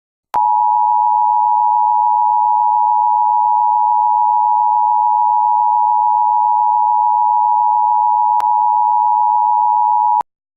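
Emergency alert attention signal: a steady electronic two-tone sound held for about ten seconds, starting and cutting off abruptly.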